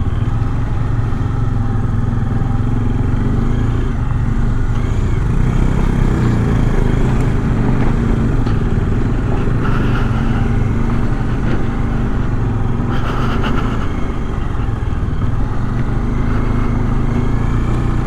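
Bajaj Dominar 400's single-cylinder engine running steadily as the motorcycle is ridden along.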